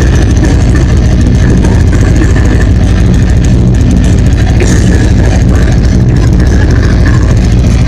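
Live metal band playing loud with drums and electric guitars, overloading the phone's microphone into a continuous distorted rumble heavy in the low end.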